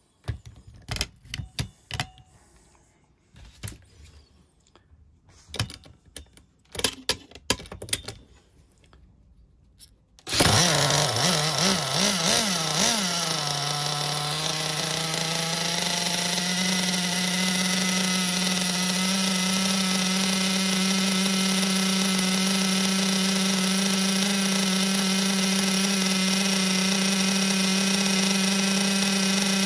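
Pro 21 nitro model engine on 20% nitro fuel being started on the bench. After some short irregular bursts of noise, it fires suddenly about ten seconds in, wavers in pitch for a few seconds, then settles into steady high-pitched running.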